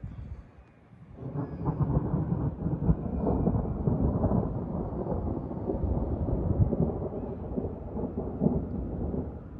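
Thunder rumbling: a long roll that starts suddenly about a second in and goes on for some eight seconds in uneven swells, easing off near the end.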